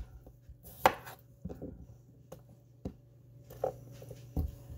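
Kitchen knife trimming the ends off raw potatoes, with a few separate sharp knocks and taps of knife and potato on the countertop, roughly a second apart, over a faint steady hum.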